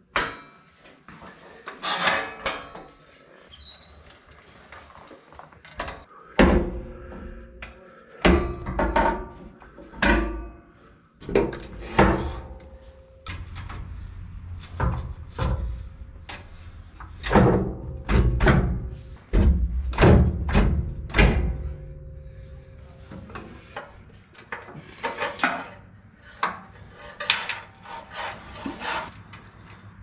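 Irregular metal clunks, knocks and scrapes as a steel rock slider is lifted on a trolley jack and worked into place against the vehicle's chassis.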